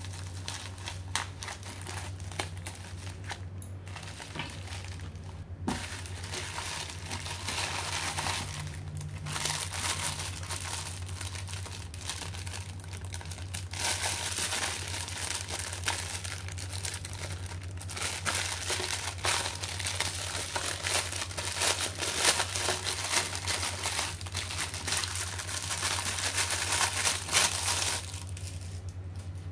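Thin clear plastic packaging film crinkling and crumpling as it is handled and pulled off a small plastic dustpan. The crinkling grows louder and busier from about halfway and drops off shortly before the end.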